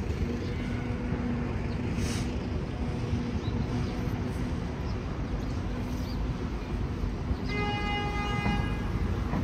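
Steady Manhattan street traffic rumble with a low engine hum, and a single car horn honk lasting a little over a second near the end.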